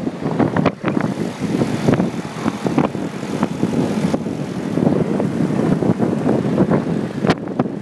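Wind rushing and buffeting over the microphone of a moving motorcycle, with the motorcycle's engine running underneath.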